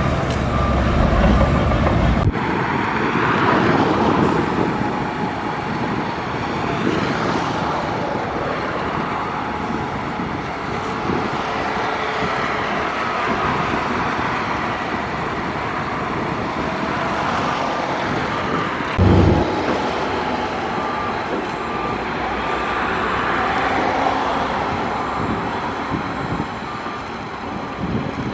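Heavy diesel earthmoving machinery at work, running steadily with the noise of dirt being moved. The deep low rumble drops away suddenly about two seconds in. There is a brief loud thump about two-thirds of the way through, and faint repeated beeping in places.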